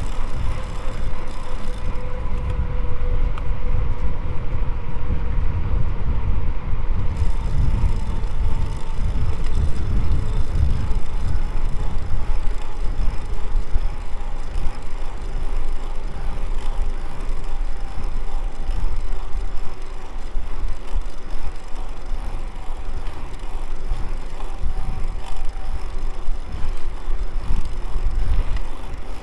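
Riding noise from a mountain bike on the trail: a loud, steady rumble of wind on the microphone and tyres on the ground, with a faint humming tone that slowly falls in pitch.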